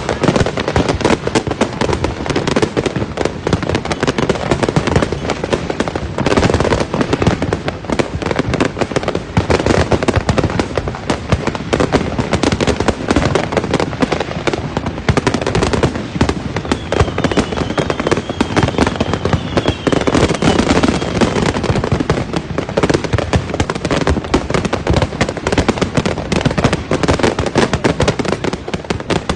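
Dense, continuous barrage of fireworks and firecrackers: rapid overlapping bangs and crackles with no letup, and a faint wavering whistle partway through.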